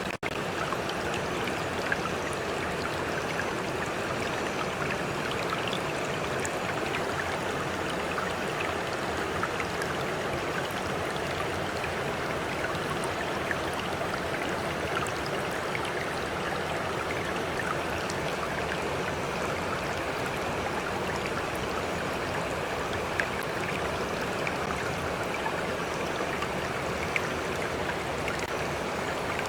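Stream of water flowing steadily, an even rushing babble with scattered small splashes and drips.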